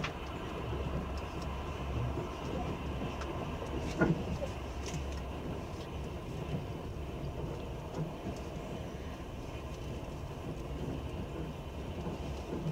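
Passenger train's running noise heard from inside the carriage: a steady low rumble of wheels on rail, with one sharp knock about four seconds in.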